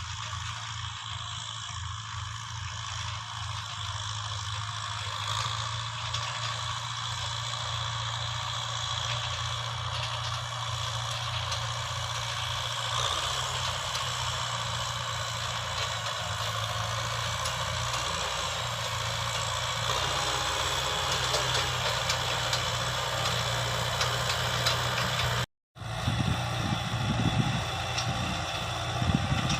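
Heavy diesel engine of farm machinery running steadily. A short dropout comes about 25 seconds in, after which the engine sound changes and has a few louder knocks.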